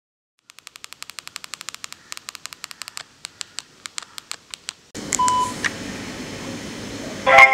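A run of short, sharp clicks, quick at first and then slower and more spaced out, stopping about five seconds in. A steady hiss then comes up with a brief beep, and louder held tones come in near the end.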